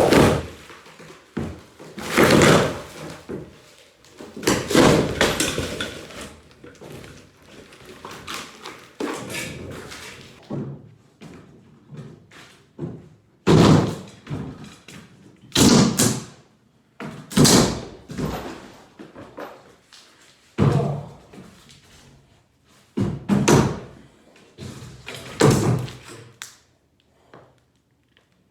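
Demolition work: irregular heavy thuds, knocks and crashes, about a dozen loud ones, as old wall framing and debris are broken out and fall, with lighter clatter between the blows.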